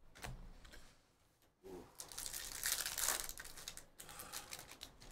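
Crinkling and tearing of an Upper Deck Ice hockey card pack wrapper being ripped open, loudest a couple of seconds in.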